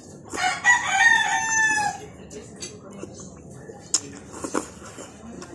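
A rooster crowing once, a loud call of about a second and a half that falls slightly in pitch at its end. A couple of sharp clicks of cutlery against a bowl follow a few seconds later.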